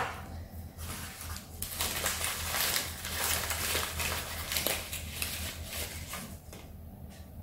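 Rustling and crinkling of wrapping as items are rummaged out of a box, fading out near the end.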